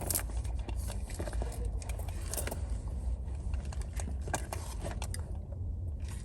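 Scattered clicks and rustling from things being handled, over a steady low rumble.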